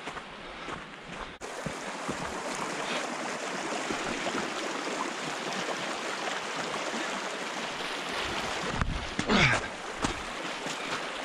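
Muddy flash-flood water rushing and rippling over stones down a normally dry desert riverbed, a steady noise of running water that steps up louder about a second and a half in. A brief louder burst cuts across it about nine seconds in.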